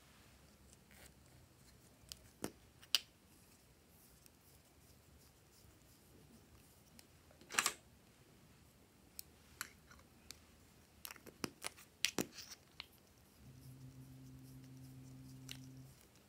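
Faint clicks and snaps of plastic lipstick and lip balm tubes and caps being handled, with a quick cluster of sharper clicks a little past the middle typical of small scissors cutting lip balm. A low steady hum comes in for a couple of seconds near the end.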